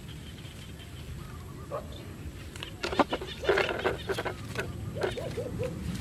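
Pigeon's wings flapping in a burst about three and a half seconds in, among sharp knocks and rustling as the bird is handled at a plastic bottle trap. Near the end a run of short, arching calls begins, about three a second.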